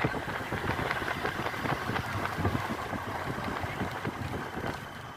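Motor vehicle running along the road, heard from aboard: a steady engine and road rumble broken by frequent irregular knocks and rattles.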